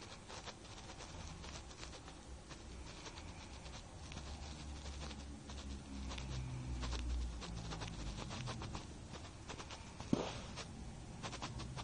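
A young woman snoring in her sleep: a low, drawn-out snore swells through the middle and fades, with faint clicks throughout and one short, sharp sound near the end.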